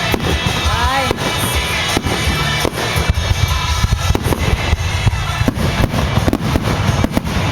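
Fireworks display: a rapid, continuous string of aerial shell bangs and booms, several a second, over a deep rumble.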